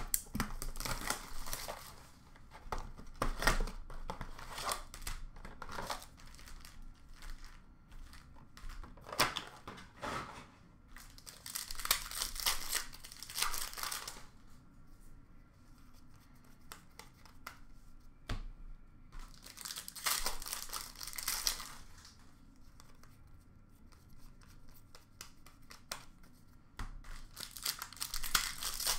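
Hockey card packs being torn open by hand, their shiny wrappers tearing and crinkling in repeated bursts a few seconds apart, with light clicks and taps of cards being handled in between.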